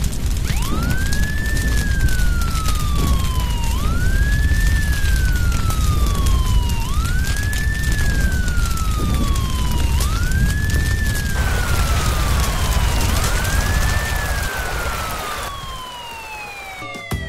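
Fire-truck siren sound effect wailing in slow cycles: each one rises quickly and falls slowly, about every three seconds, five times over, above a heavy low rumble. It fades somewhat near the end.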